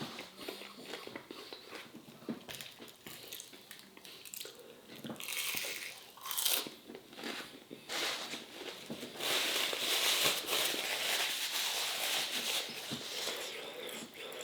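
Close eating sounds: a person biting and chewing crisp fried food, with many small crunches and wet mouth clicks. A steady hiss runs for a few seconds in the second half.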